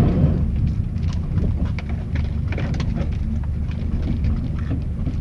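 Mitsubishi Lancer Evolution IX rally car heard from inside the cabin, its engine running low and steady, with many irregular knocks and clicks over it as the car rolls over the snow track.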